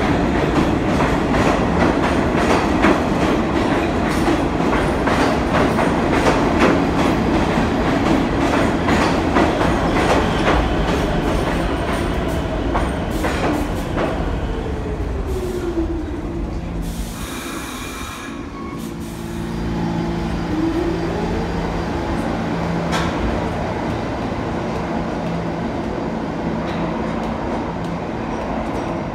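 New York City subway train moving along the platform track with rapid wheel clatter, then slowing as its motor whine falls in pitch. About halfway through comes a short burst of air hiss, then a steady hum, and the whine rises again.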